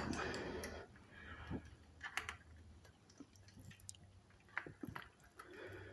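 Faint, irregular light clicks and ticks from hands working on the bike's brake and wheel, after a short rustle at the start.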